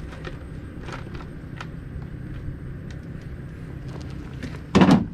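Steady low engine rumble from machinery running nearby, with scattered small clicks and knocks, and one loud short thump near the end.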